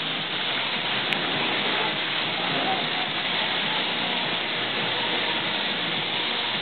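Steady hiss of compressed air from a gravity-feed paint spray gun spraying metal-flake paint, with a single short click about a second in.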